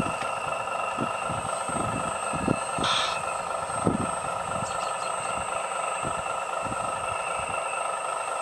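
Radio-controlled model excavator's motors whining steadily as it swings and lowers its boom, with a short hiss about three seconds in and irregular low thumps.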